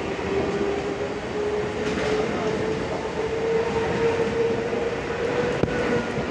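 Mumbai suburban local train (EMU) running past the platform, a steady rumble of wheels and carriages with a whine that rises slowly in pitch as the train picks up speed. A single sharp click near the end.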